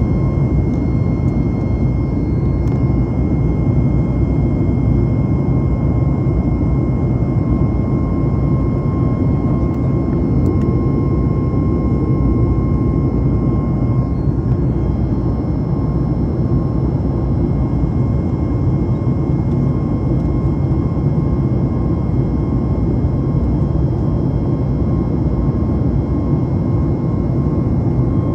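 Cabin noise of a Boeing 737 MAX 8 climbing after take-off, heard from a window seat beside its CFM LEAP-1B engine. It is a steady low rumble with a thin, steady whine on top.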